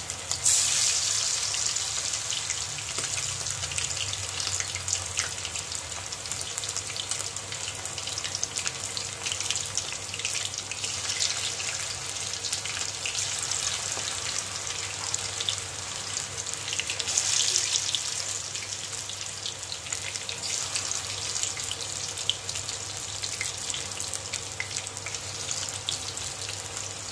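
Marinated chicken pakoda pieces deep-frying in hot oil in a kadai: a steady sizzle and crackle of bubbling oil, flaring louder about half a second in and again around seventeen seconds as more pieces are dropped in.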